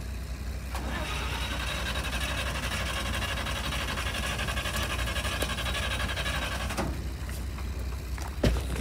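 Starter motor cranking an old ex-RAAF military truck's engine for about six seconds without it firing, then cutting off abruptly. The engine stalled in deep river water, probably with water in the distributor. A single knock near the end.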